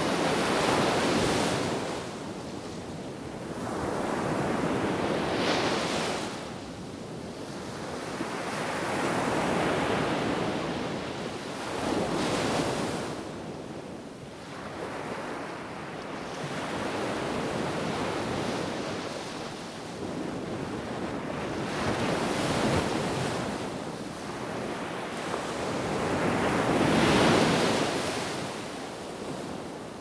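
Small sea waves breaking on a sandy beach and washing up the shore, the surf swelling and easing every four to five seconds, with the biggest wave near the end. Wind blows through it.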